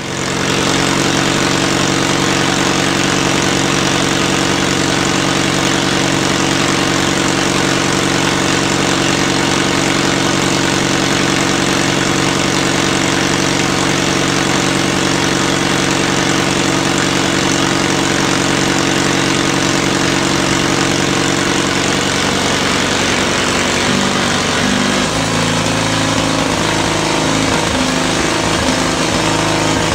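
Caterpillar D2 crawler tractor engine running steadily. About 22 seconds in, the running turns uneven and the pitch shifts.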